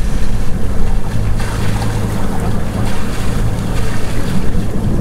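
Water rushing and churning in a sailing yacht's wake, with wind buffeting the microphone and a steady low hum underneath.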